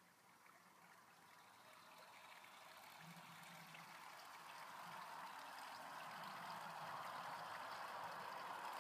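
A vehicle approaching on the highway overpass: a faint, steady rush of tyre noise that builds steadily louder.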